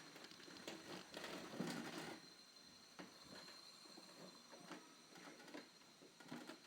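Faint irregular clicks and rustling, busiest about a second in, over a faint steady high-pitched whine.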